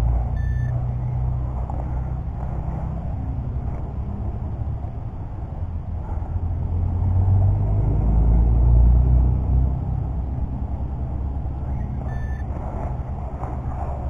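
Short electronic beeps from a handheld metal-detecting pinpointer probed into a freshly dug hole in turf, a few times: about half a second in and again near the end. Under them runs a steady low rumble, loudest in the middle.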